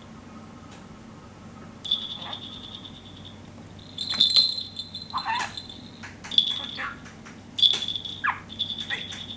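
Small hanging bell on a budgerigar toy jingling in short bursts, about five times, as the budgie pecks and tugs at it, with a few short falling chirps from the budgie.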